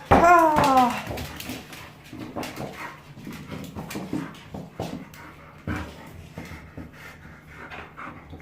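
Jindo dog gives one loud whine, falling slightly in pitch and lasting about a second, then pants and snorts in quick, irregular breaths.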